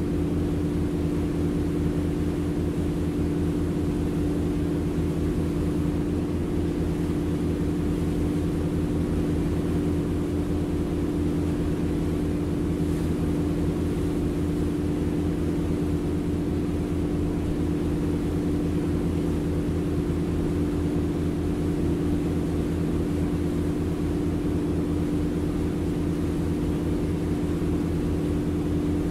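Boat engine running steadily under way, heard from on board: a constant low hum that holds one pitch throughout.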